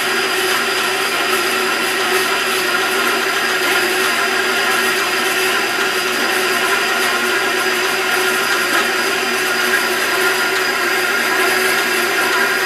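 A 14-inch wood-cutting bandsaw converted for metal, its blade slowed to about 200 feet per minute, runs steadily while sawing through a hand-fed piece of roughly 5/16-inch aluminium. The motor and pulleys give a constant hum and whine under the sound of the cut.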